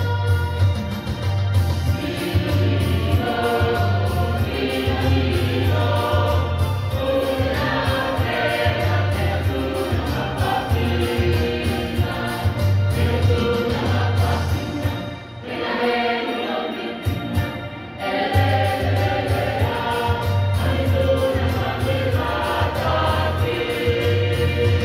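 A choir singing a song together, many voices holding long notes, with a short dip in level about fifteen seconds in.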